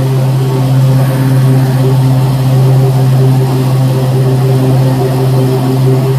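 Exmark Turf Tracer 48-inch walk-behind mower running steadily with its blades engaged, cutting grass. The engine hum is loud and even throughout.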